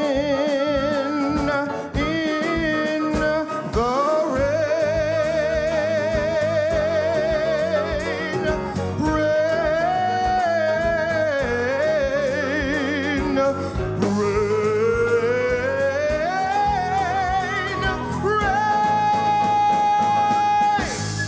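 A singer's wordless runs and long held notes with wide vibrato over a small live band of guitar, bass, reeds and drums. The voice climbs late on to a long high held note, and the music then stops suddenly.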